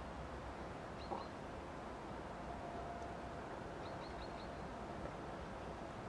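Quiet open-field ambience: a steady low background hiss with a few short, high bird chirps, a pair about a second in and a quick run of four about four seconds in. A single brief knock about a second in is the loudest sound.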